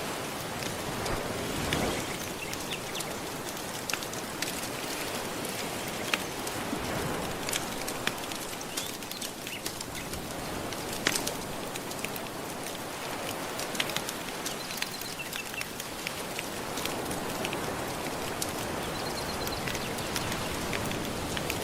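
Soft ocean waves washing on the shore in slow swells, mixed with a wood fire crackling and popping in sharp, irregular snaps.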